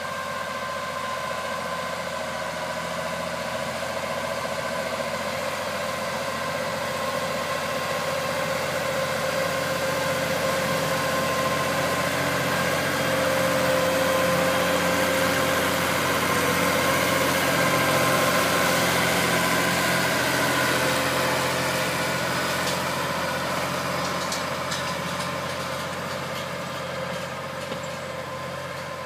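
Farm tractor engine running steadily during sowing. It grows louder toward the middle and fades toward the end, with faint clicks near the end.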